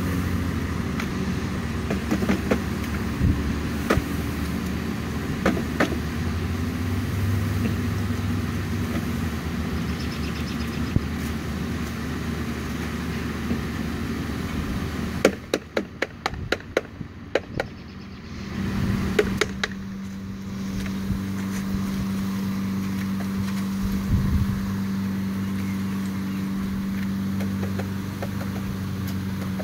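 A mass of honeybees buzzing as they are shaken out of a wooden package into a hive: a steady low hum. About halfway through comes a quick run of sharp knocks as the package is rapped and shaken over the hive, and after it the buzzing grows louder.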